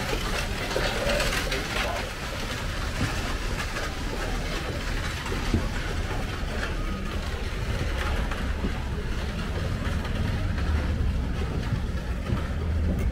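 A horse-drawn stagecoach rolling past on a dirt street, its wheels and the horses' hooves fading as it moves away, over a steady low rumble.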